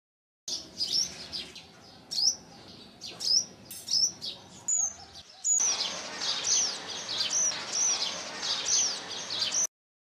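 Purple sunbird calling: short, sharp, high chip notes that slur downward, irregular at first, then about two a second over a steady background hiss in the second half.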